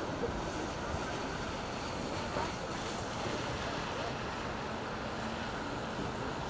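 Wind buffeting the microphone: a steady rushing noise with a fluttering low rumble, and faint distant shouts from players now and then.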